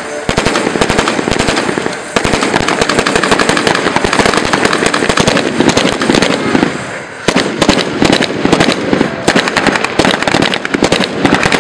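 Dense, near-continuous gunfire with blank rounds mixed with pyrotechnic bangs, many shots a second. There is a brief lull about seven seconds in.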